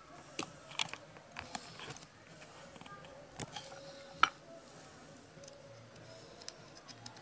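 Faint, scattered clicks and taps of hard plastic being handled, with one sharper click a little past the middle.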